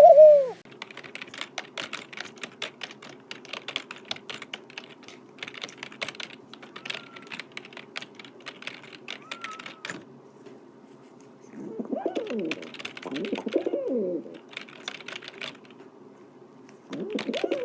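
Dove cooing: runs of low, arching coos about twelve seconds in and again near the end. They follow about ten seconds of quick light tapping and clicking, with two faint short high chirps among the clicks.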